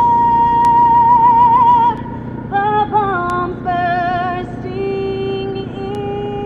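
A woman singing slow, long held notes with vibrato, over a steady low background hum.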